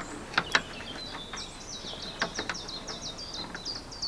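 A songbird singing a fast run of repeated high chirping notes. It is mixed with a few sharp metallic clicks, loudest early on and again about two seconds in, from a spanner gripping a screwdriver shaft as it turns a rusted door-hinge screw.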